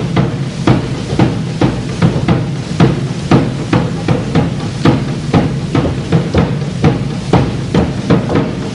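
Rhythmic heavy thumps, about two to three a second, keeping the beat of a Rugova folk dance, over a steady low hum.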